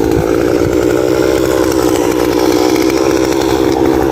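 Chainsaw engine running at a steady speed off the cut, an even drone with no revving.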